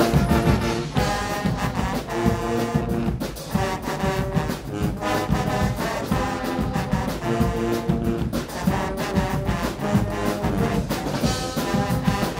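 Guggenmusik band playing loudly: trumpets and lower brass horns hold chords over drum kits with cymbals and a big bass drum beating a fast, driving rhythm.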